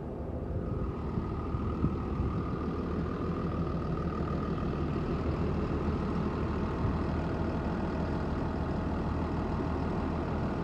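2009 NABI 40-LFW hybrid-electric transit bus pulling away from the stop: its engine running, with a steady high-pitched whine over it from about a second in.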